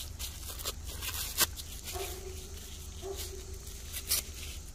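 Kraft paper wrapping crinkling and crackling as it is unrolled by hand from a candle, with sharp crackles about a second and a half in and near the end. A faint held tone sounds through the middle.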